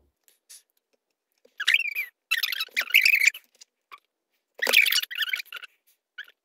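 A person's high-pitched squeals in two bursts of wavering pitch, starting after a second and a half of quiet, as a reaction to exam results just received.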